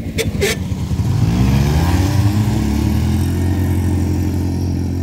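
Small quad bike (ATV) engine revving up as it pulls away, rising in pitch for a couple of seconds and then running steadily. Two short clicks come just before the rev.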